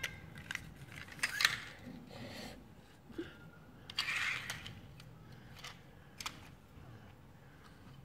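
Small plastic toy cars and trailer pieces clicking and clattering as they are handled and set down on a tile floor: a few separate clicks, with a brief scraping rustle about four seconds in.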